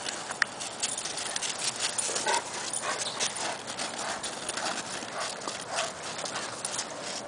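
Dogs' paws crunching on snow and dry leaves as they scamper about playing, a quick run of short crisp steps, with a dog giving a few short yips.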